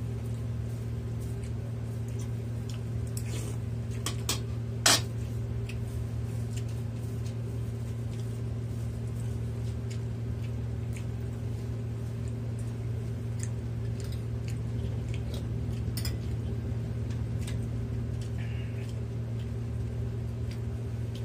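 Eating from a soup bowl: scattered sharp clicks of a spoon against the bowl, the loudest about five seconds in, over a steady low hum.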